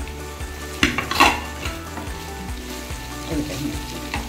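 Chicken and vegetables sizzling as they stir-fry in a frying pan, with a spatula stirring and scraping through them; a few sharper spatula scrapes and knocks come about a second in.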